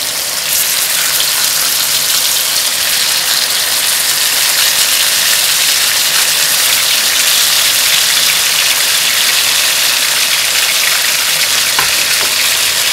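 Beef roulades searing in hot fat on a bed of onions fried almost to burning: a loud, steady sizzle.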